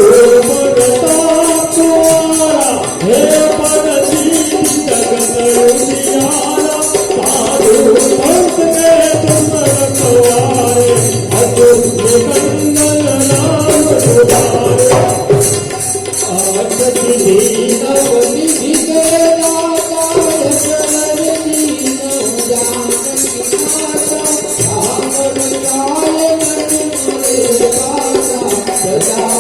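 Devotional bhajan music: a wavering melody carried over steady, jingling hand percussion keeping a fast even beat.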